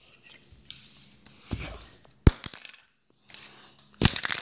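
Lego plastic bricks clicking and clattering on a hard floor: a few sharp knocks, the loudest about two seconds in, and a quick cluster of clatter near the end.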